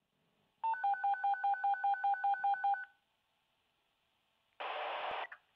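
Touch-tone telephone dialing: a rapid, even run of about fourteen keypad beeps over two seconds. About two seconds later comes a half-second burst of hiss.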